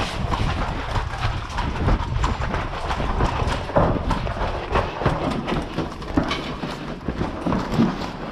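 Irregular knocks and clatter over a low rumble, as of a player moving about with gear and handling the camera.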